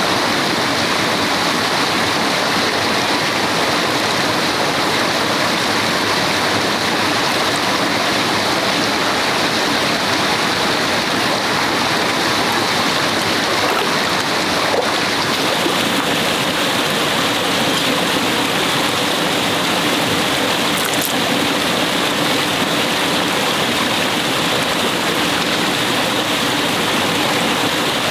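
Stream water running steadily, a continuous rushing hiss that grows slightly brighter about halfway through.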